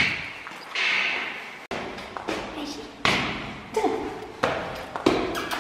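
Footsteps climbing hard stone stairs, a sharp step about every 0.7 seconds, echoing in the stairwell.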